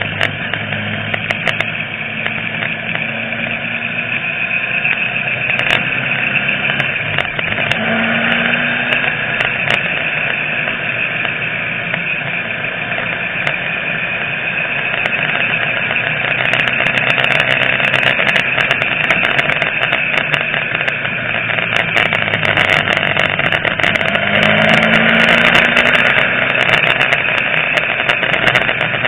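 A motor vehicle's engine running at road speed while driving, with heavy wind rushing over the microphone. The engine pitch rises twice under acceleration, about eight seconds in and again near the end.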